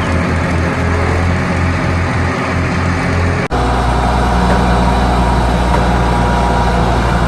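Heavy truck engine idling: a low, throbbing drone that breaks off abruptly about three and a half seconds in and carries on as a steadier, deeper drone.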